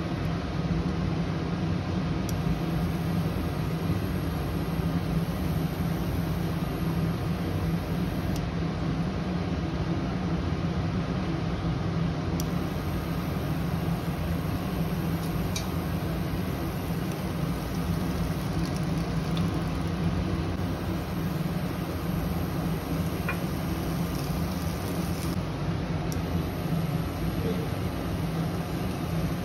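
Steady whir and hum of an induction cooktop running, with its cooling fan on. There are a few faint taps as a spatula spreads rice in the pan.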